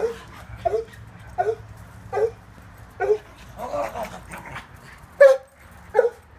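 West Highland White Terrier barking in short, sharp, high barks, about eight in a row with a quick flurry in the middle: excited play barking during a bout of zoomies.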